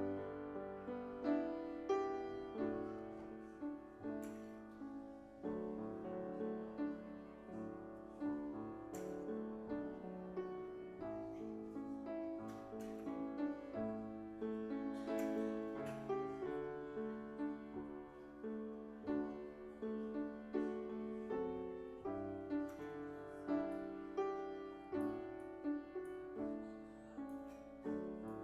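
Solo piano playing a slow piece, with new notes struck about once a second over held chords.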